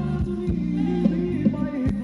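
Live band playing Thai ramwong dance music with a steady drum beat.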